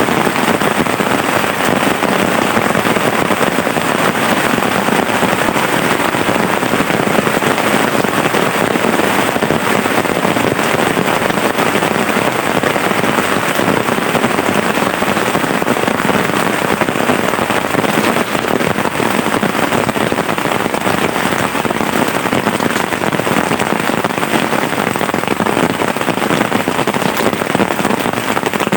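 Heavy rain falling steadily, a loud, dense patter of drops that keeps an even level throughout.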